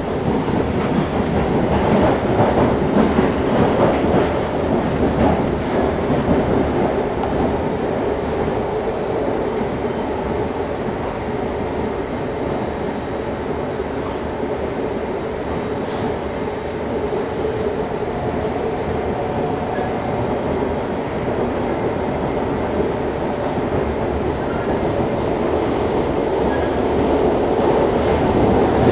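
Interior of a moving SMRT C651 metro car: the steady rumble and hiss of the train running on its rails, with occasional faint clicks from the wheels and track. It gets louder near the end.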